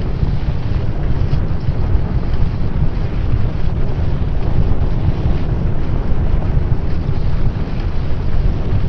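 Loud, steady low rumble with wind buffeting the microphone, without clear individual bangs.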